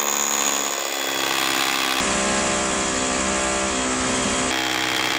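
Corded rotary hammer boring into a concrete slab through a wooden post base, running steadily under load. Its tone shifts abruptly twice.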